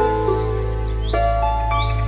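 Background music: held chords that change every half second or so over a steady low drone, with short rising bird-like chirps sounding over it.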